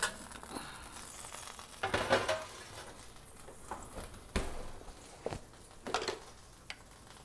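A metal baking pan being taken out of an oven: a scrape about two seconds in, then a few sharp knocks and clatters of the pan and rack.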